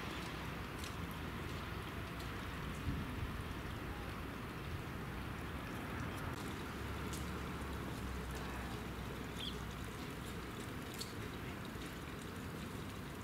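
Faint scattered crackles and rustling of dry straw as a long-tailed goral forages in it, over a steady outdoor background hiss.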